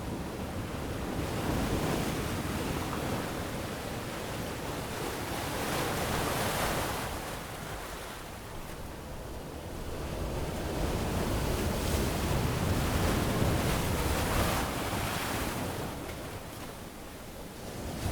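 Ocean waves breaking and washing up on a beach, the surf swelling and fading in slow surges every several seconds.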